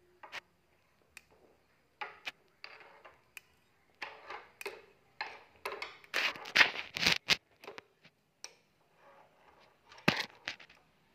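Irregular scrapes, clicks and knocks of a thin stick prodding along a tile floor under a wheeled speaker cabinet, with a denser, louder run of scraping about six to seven seconds in and a single sharp knock about ten seconds in.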